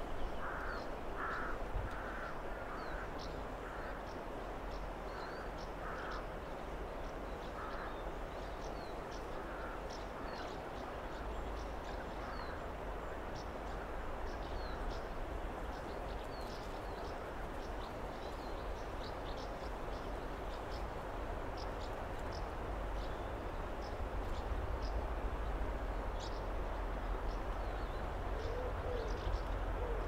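Wind rushing over a marsh and rumbling on the microphone, growing stronger near the end, with small birds chirping briefly and high-pitched throughout. A series of lower, harsher bird calls comes in the first dozen seconds.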